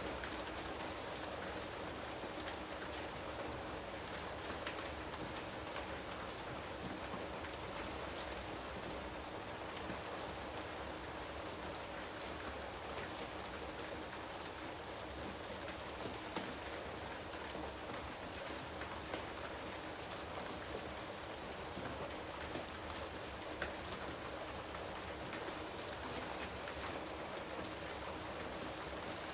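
Steady heavy rain falling on foliage and the ground, an even hiss with scattered individual drops ticking through it.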